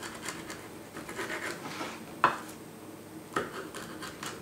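Kitchen knife cutting through a pineapple slice's rind on a plastic cutting board: a run of scratchy sawing strokes, with two sharp knocks about two seconds in and a second later.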